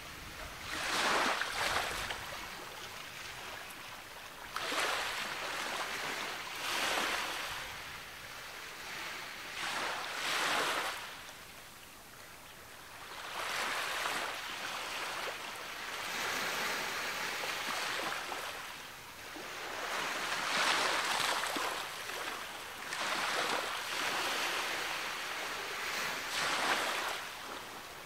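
Ocean waves breaking and washing up the shore, a surge of surf hiss every three seconds or so that swells and falls away between breakers.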